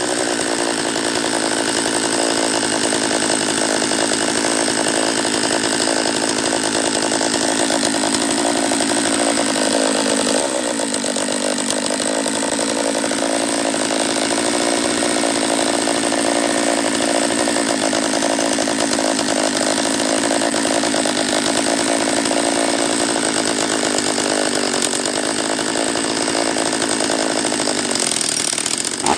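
Husqvarna 44 chainsaw's 44 cc two-stroke engine running steadily, its pitch sagging briefly about ten seconds in before settling again. It is not running right, which the owner takes for a lower-end vacuum leak.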